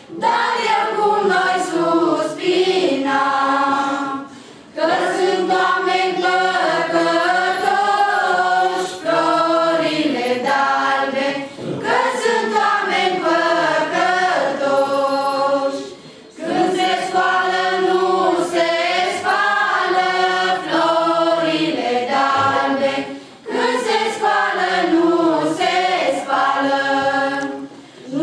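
Group of women caroling, singing a Romanian colindă (Christmas carol) unaccompanied, in long phrases with short breaks between them.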